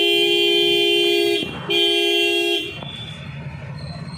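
Vehicle horn honking: a long steady blast that stops about a second and a half in, then a second, shorter blast of the same pitch.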